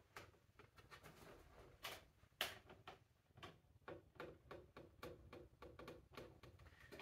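Faint, irregular clicks and taps of fingers working a speedometer cable onto the back of a motorcycle's chrome speedometer housing, with two sharper clicks about two seconds in.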